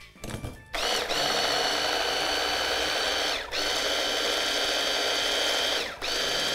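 Electric food processor motor running with a high whine, chopping a thick avocado sauce in three pulses with brief stops about halfway and near the end. A few clicks from the bowl or lid just before the motor starts.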